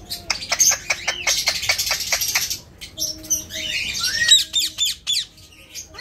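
Alexandrine parakeet calling: a quick run of sharp chirps for about two and a half seconds, then a few rising and falling whistled chirps about four seconds in.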